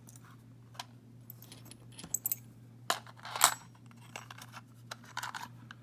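Small metal lock parts (pins, springs and cylinder pieces of a disassembled euro cylinder) clicking and tinkling as they are handled, a few sharp clicks with a brief metallic ring, the loudest about three and a half seconds in.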